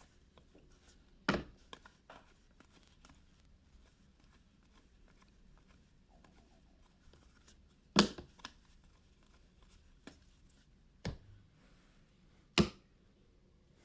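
Trading card packs and cards being handled on a tabletop: faint flicking and rustling, with four sharp taps spread through, the loudest about eight seconds in and near the end.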